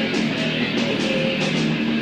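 Hardcore punk band playing live: distorted electric guitar strummed over bass and drums, with evenly repeating cymbal-like hits. An instrumental stretch without vocals.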